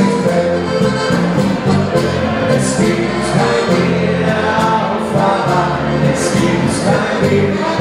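Live party-band music with several voices singing together over a steady bass line that changes note every second or so.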